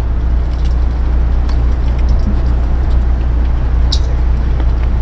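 Steady low mechanical hum, like a running motor, with a few faint clicks as plastic hose fittings are handled; the sharpest click comes about four seconds in.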